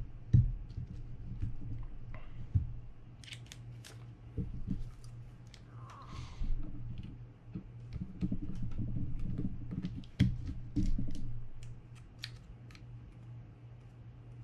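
Small clicks, taps and scrapes of screwdrivers and hands working a screw out of a Daiwa BG90 spinning reel's metal body. Scattered sharp ticks are mixed with stretches of handling rustle, over a steady low hum.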